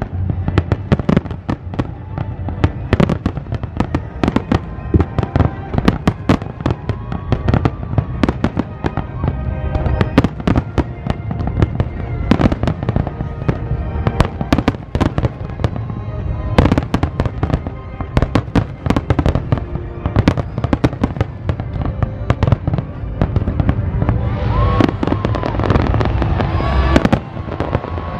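Large aerial fireworks display: a rapid, dense run of shell bursts banging overhead, with crackling, growing denser near the end.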